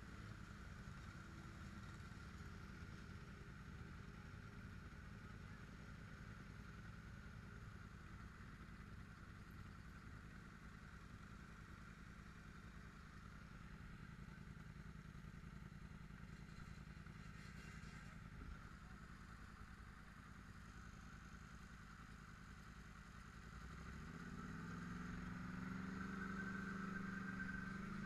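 ATV engine running steadily at low speed. About three-quarters of the way through it speeds up, getting louder with a rising engine note.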